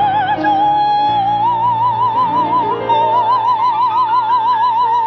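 Female soprano singing in operatic style, holding one long high note with a wide, even vibrato over orchestral accompaniment. The note steps up slightly about a second in and carries on.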